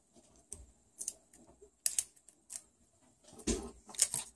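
Small plastic toy pet figurines being handled and set down on a wooden tabletop: scattered light clicks and taps, the loudest in a short cluster near the end.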